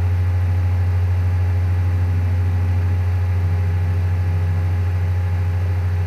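Steady low hum with fainter, higher steady tones above it.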